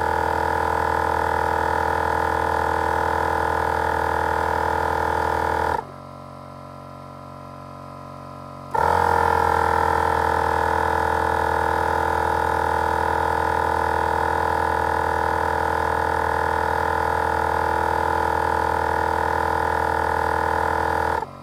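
Wolfbox dual portable air compressor running steadily while inflating a tire, with a fainter steady hum underneath. It cuts off about six seconds in, pausing about three seconds to check the tire pressure, starts again, and shuts off at the very end on reaching its set pressure.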